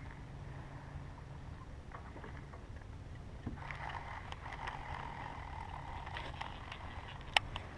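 Baitcasting reel (Shimano Antares DC) spool whirring as line pays out on a cast, for about three seconds from halfway through, over a steady low rumble. A single sharp click near the end.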